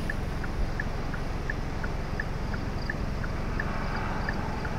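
Steady low rumble of wind blowing over the microphone, with faint short high chirps repeating at an even pace, about three every two seconds.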